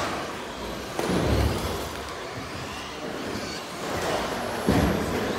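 Radio-controlled racing trucks on the track: two dull thuds, about a second in and near the end, over a steady background noise.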